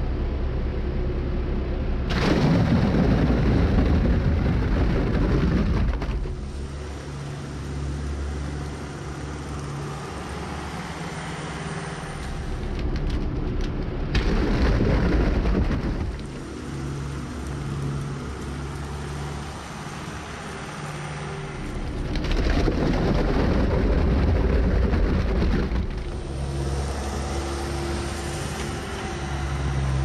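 A farm machine's engine running steadily while scraping manure along concrete barn alleys, with three louder, noisier stretches of a few seconds each, about ten seconds apart.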